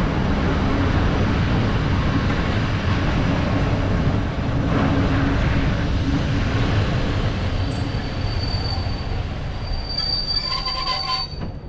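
Retro train hauled by an SM42 diesel-electric locomotive running on the rails with a steady low rumble. A thin high wheel squeal comes in over the second half and is strongest about ten seconds in, along with a brief run of clicks.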